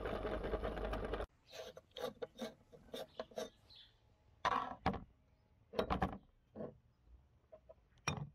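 Meat grinder running as it churns melted ice cream through its plate, then stopping suddenly about a second in. Then come scattered clinks, knocks and scrapes of metal parts as the locking ring and cutting plate are worked off, with the loudest knocks near the middle and the end.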